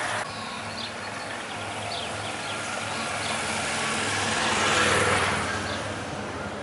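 A bunch of road-racing cyclists passing close by, with a following car's engine. The noise swells to its loudest about five seconds in, then fades.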